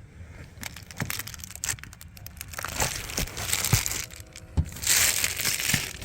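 Close rustling and crinkling with scattered small knocks, like things being handled and shifted about at close range. It grows busier after about two and a half seconds, and the loudest patch of rustling comes about five seconds in.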